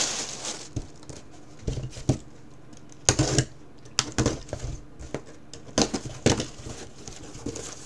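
Handling of small cardboard boxes: a string of taps and knocks, with a box cutter slitting the packing tape across the top of a box in short scrapes, the loudest a little after three seconds in.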